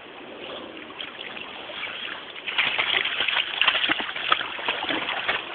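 Water splashing and sloshing around a swimming dog, getting louder and busier about halfway through.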